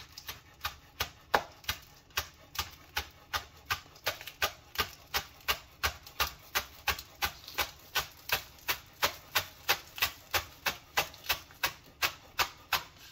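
Chef's knife slicing a bunch of green onions thinly on a wooden cutting board: a steady run of knocks of the blade on the board, about three a second.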